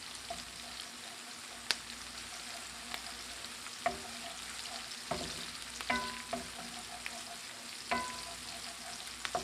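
Pork pieces with onion and garlic sizzling steadily in hot oil in a pan as they brown, with a few sharp clicks of a utensil against the pan.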